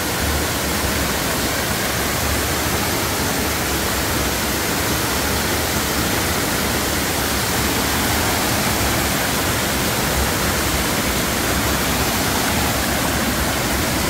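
Small mountain waterfall, about 2 to 3 m high, pouring hard into a rock pool, heard up close as a loud, steady rush of water.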